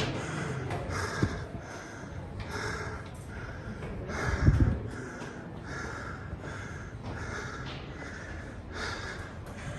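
A man breathing hard in quick, regular breaths, about one every second or less, winded from climbing steep tower stairs. A single low thump comes about halfway through.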